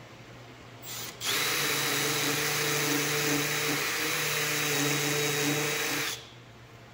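A handheld power tool gives a brief blip, then runs steadily for about five seconds and cuts off suddenly.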